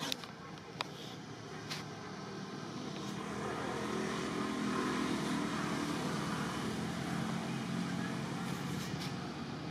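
A motor vehicle passing by: a steady rushing engine-and-road noise that grows louder over several seconds, then eases off near the end.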